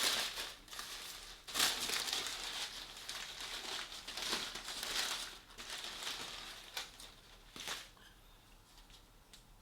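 Plastic food packaging being opened, crinkling and crackling in irregular bursts that die down near the end.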